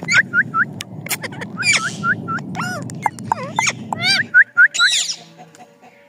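Rose-ringed parakeets calling: a rapid run of short, shrill chirps, a few harsher screeches among them, over a low background rumble that cuts off abruptly about four seconds in.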